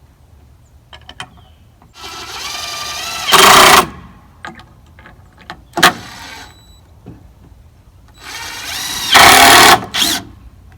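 A power drill driving screws into wooden boards, twice: each time the motor whine rises in pitch and ends in a short, louder burst. A sharp click comes between the two.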